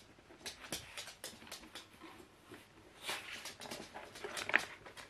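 Light rustling and clicking of a cardboard box and a paper leaflet being handled, with a louder rustle a little after three seconds and a brief high squeak near the end.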